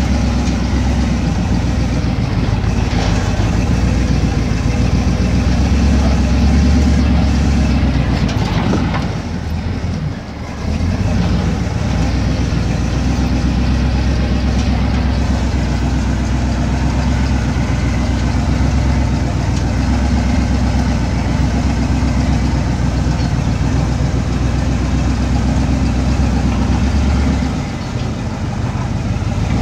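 An off-road 4x4's engine runs at low trail speed, heard from inside the cab as a steady low drone mixed with rumble from the rough dirt track. The engine note eases off briefly about ten seconds in and again near the end.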